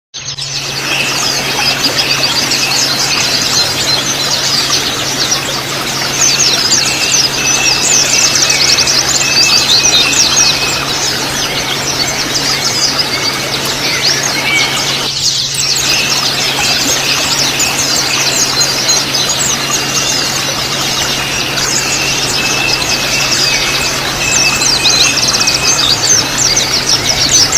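White-eyes (pleci) chattering in fast, dense high twitters, the ngriwik song, with a steady low hum underneath and a brief break about halfway.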